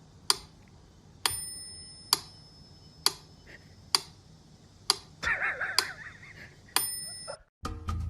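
Sharp ticks, a little under one a second, two of them ringing briefly like a small bell. A short wavering call sounds over them about five seconds in. The clip cuts off suddenly just before the end.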